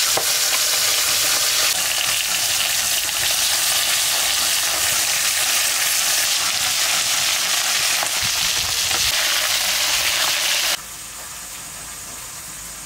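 Turmeric-coated foloi fish frying in hot oil in a wok, a loud steady sizzle with a spatula stirring and turning them. About eleven seconds in, the sizzle cuts off abruptly, leaving a much quieter hiss.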